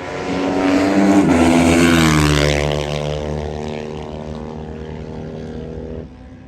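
A motorcycle engine passing close by: the note grows louder, drops in pitch as the bike goes past about a second in, then holds a steady lower note as it moves away, and cuts off suddenly near the end.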